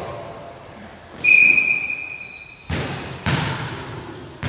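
Referee's whistle blown once for about a second, signalling the serve, followed by a few echoing thuds of a volleyball striking the hard floor of the sports hall.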